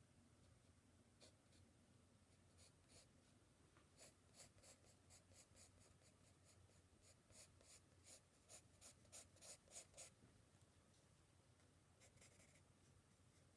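Soft 4B graphite pencil drawing on sketch-pad paper: faint, short scratching strokes, a few at first, then a quick run of about two or three a second in the middle, and a few more near the end.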